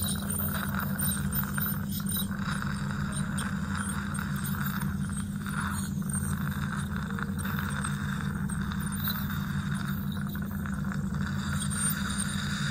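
Dental suction running steadily during tartar scaling: a low hum with an airy hiss, and faint scraping from the scaling instruments.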